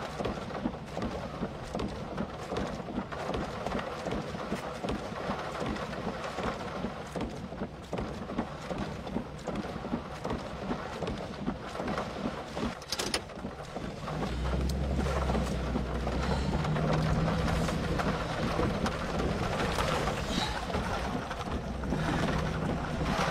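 Storm wind and heavy rain buffeting the microphone, a dense crackling hiss of rain over gusting wind noise. About 14 seconds in, it turns louder, with a steady low rumble underneath.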